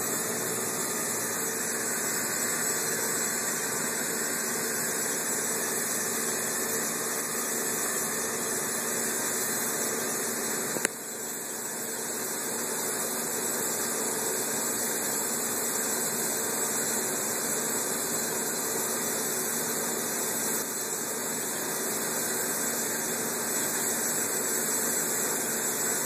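Steady hum with an even hiss, unchanging throughout, with a single sharp click about eleven seconds in.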